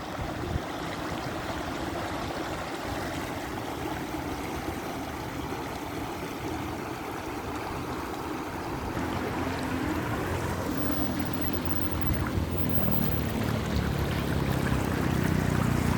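Floodwater rushing steadily after heavy rain, getting a little louder in the second half.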